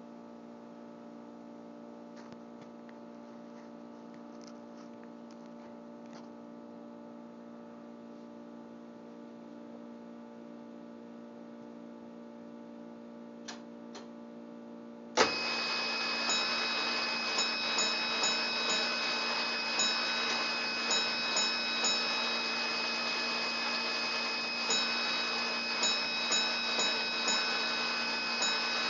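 A steady hum, then two clicks, then the house fire alarm comes on suddenly about halfway through and sounds continuously. Over it the Gamewell master box's bell strikes out its box number in groups of one, four, one and three taps, twice over.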